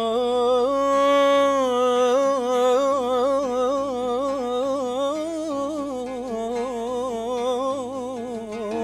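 A man singing a long, free-rhythm melismatic phrase on an open vowel, his pitch wavering and sliding through ornaments, with the oud not plucked.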